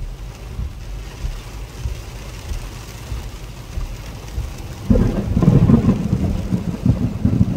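Rainstorm with a low, uneven rumble of wind and rain. About five seconds in, a louder rolling rumble of thunder begins and carries on.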